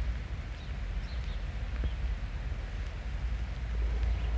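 Rainy outdoor ambience: a steady low rumble under an even hiss, with a few faint bird chirps about a second in and again near the end.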